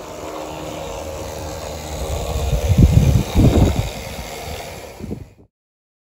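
Model diesel train running on garden railway track, a steady rumbling noise with louder low surges around three seconds in. The sound cuts off suddenly about five and a half seconds in.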